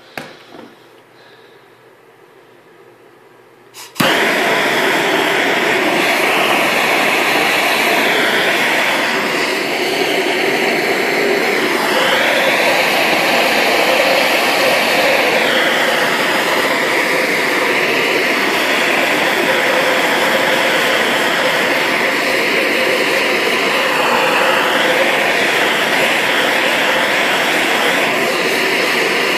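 Handheld gas torch burning, a loud steady hissing rush that starts abruptly about four seconds in. Its tone sweeps a little now and then as the flame is moved.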